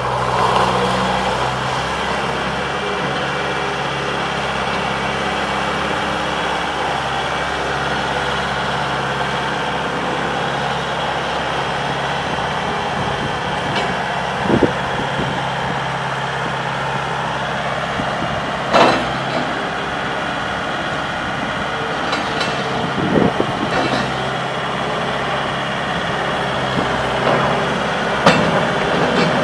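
Bobcat S250 skid steer's diesel engine running at a steady speed, with a few short knocks or clanks along the way.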